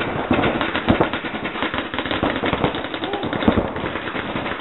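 Reball markers firing rubber balls in rapid strings, a dense clatter of many shots a second from several players at once.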